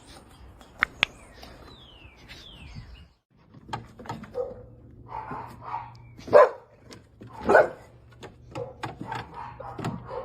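A dog barking a few short barks in the second half, the two loudest a little over a second apart. Before that come a couple of sharp clicks and two short falling squeaks.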